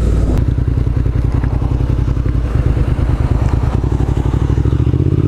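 2004 Suzuki SV650's V-twin engine running at low, steady revs as the motorcycle slows to pull off the road.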